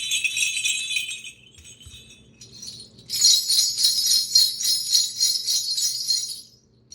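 Vintage early-20th-century sleigh bells from English trap drummers' cases being shaken in a steady rhythm. One set stops about a second in; after a short pause a second, higher-pitched set jingles from about three seconds in until near the end.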